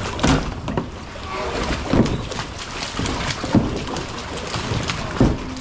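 A hooked fish thrashing at the surface beside a kayak, water splashing irregularly with a few louder splashes.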